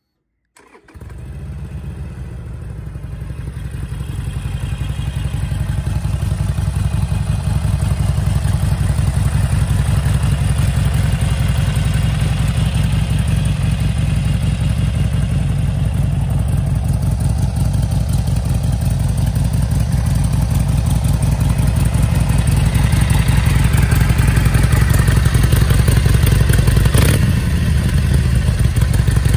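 Harley-Davidson Sportster Iron 883's air-cooled 883 cc four-stroke V-twin running at idle with a steady, rapid pulsing beat. It starts abruptly about a second in, grows louder over the next several seconds, then holds steady.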